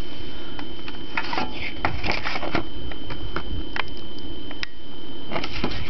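Handling noise from a CD jewel case and its paper booklet: scattered irregular clicks and rustles over a low rumble, with a thin steady high-pitched whine underneath.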